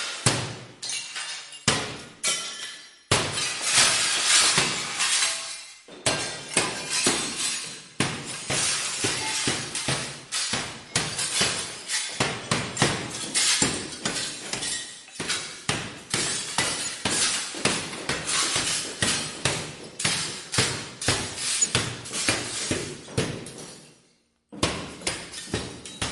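Mirror glass shattering in a long run of repeated sharp crashes, several a second, with falling shards; one long, loud crash about three seconds in.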